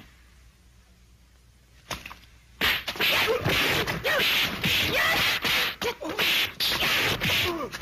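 Cartoon fight sound effects: a fast, dense run of punch and kick whacks and swishes with short cries, starting after about two and a half seconds of near quiet.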